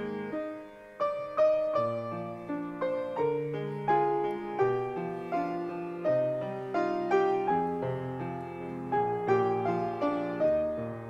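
Solo piano playing the slow, gentle introduction to a sacred song: chords and a melody of struck notes, each ringing and fading.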